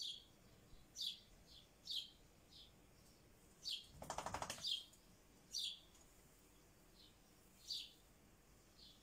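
Rosy-faced lovebird calling: about a dozen short, sharp high chirps, roughly one a second, with one harsh, rapidly pulsed chattering call lasting under a second about four seconds in.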